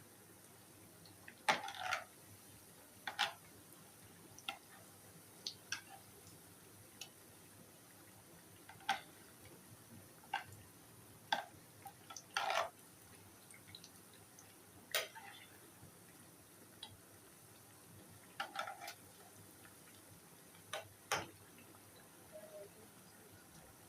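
Light, irregular clicks and knocks of kitchen utensils and dishes being handled, some in quick pairs, spaced a second or more apart.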